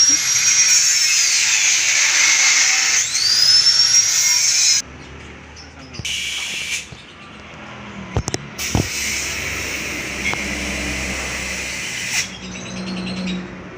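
High-pitched power tool whining, its pitch rising and falling twice, then cutting off suddenly about five seconds in. A few sharp knocks follow around eight seconds, then another stretch of hissing tool noise that stops about twelve seconds in.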